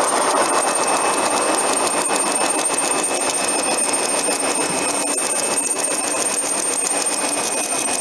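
Automatic tank seam welder running, a steady crackling hiss from the welding arc with a thin high whine held over it.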